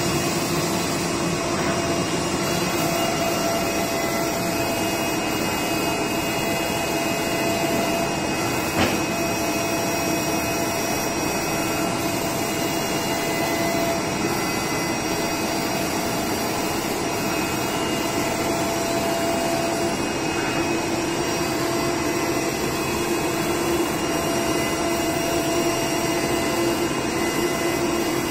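Esko digital flatbed cutting table running: a steady whir like a vacuum blower, the kind that holds the sheet down on the table, with faint pitched motor tones coming and going as the tool head moves. One sharp click about nine seconds in.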